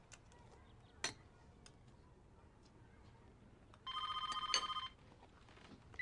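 A telephone ringing once, a buzzy electronic trill about a second long, two thirds of the way in. A sharp click comes about a second in.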